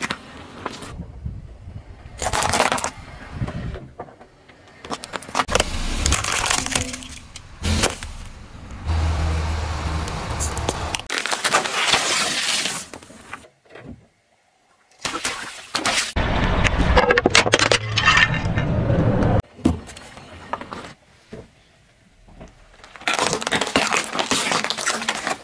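A car tyre rolling slowly over objects and crushing them, in a run of short clips that start and stop abruptly: cracking and crunching of plastic and squashing of soft toys and balloons under the wheel, with tyre and road noise between.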